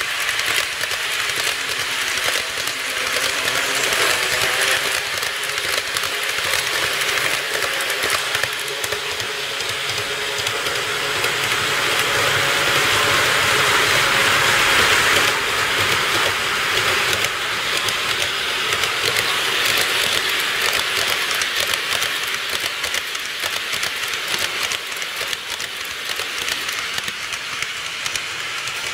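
N-gauge model trains running on the layout's track: a steady rolling hiss with rapid fine clicks from the wheels and rail joints. It swells towards the middle and eases off near the end.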